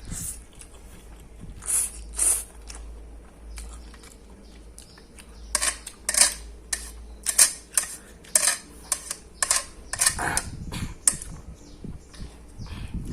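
Close-miked eating sounds of a person eating fried instant noodles: short, wet mouth noises of chewing and smacking, two about two seconds in, then an irregular run of about two a second through the middle.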